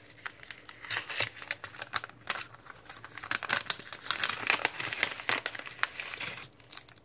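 Paper packet being peeled open and unfolded by hand: irregular crinkling and rustling of the folded paper wrapper as its sticker seal comes away, dying down near the end.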